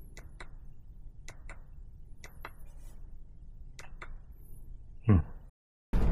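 Light clicks in pairs, about one pair a second, over faint room noise. About five seconds in, a short, loud, downward-sliding tone is followed by an abrupt cut to silence, and loud music starts just before the end.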